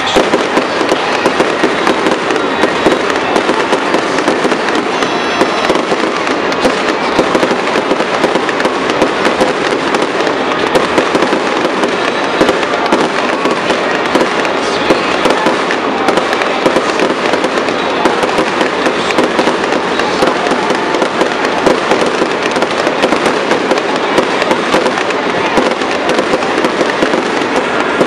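Fireworks display: a dense, unbroken run of crackling pops and bangs from fireworks fired in quick succession.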